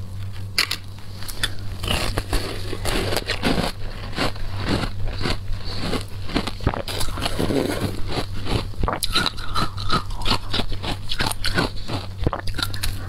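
Biting and chewing a bar of packed shaved ice soaked in passion fruit juice: a dense run of sharp, crackly crunches.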